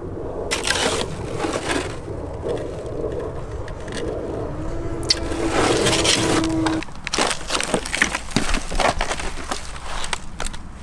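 Wreckage of a crashed RC Boeing 787 model being handled and then stamped on. A stretch of rustling and scraping leads into a run of sharp crackles and snaps from about seven seconds in, as the broken airframe is crushed underfoot.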